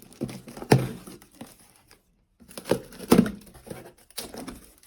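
A cardboard box and its packaging being handled and opened: irregular rustling, crinkling and tearing with sharp handling clicks, cutting out briefly about two seconds in.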